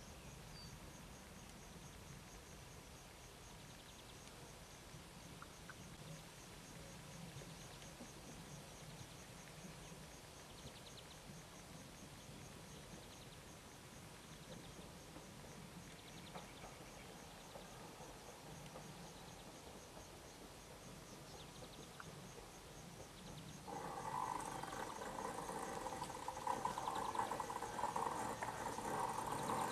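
Insects chirping faintly with an even, rapid pulse over quiet outdoor air. About 24 s in, a MÁV class 415 Stadler FLIRT electric multiple unit draws level and a loud whine of several steady tones sets in suddenly, running on to the end.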